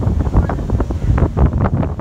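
Wind buffeting the microphone on the open deck of a moving boat: a loud, gusty rumble that rises and falls irregularly.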